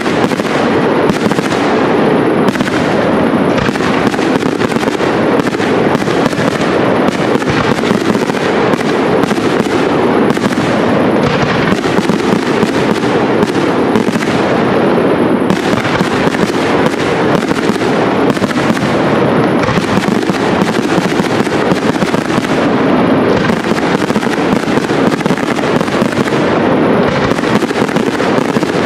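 Professional aerial fireworks display: a dense, unbroken barrage of shell bursts and crackle, the bangs coming too fast to count.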